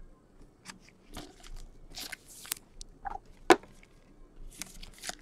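Trading cards and foil pack wrappers being handled on a tabletop by gloved hands: soft rustles and scattered light clicks, with one sharper tap about three and a half seconds in.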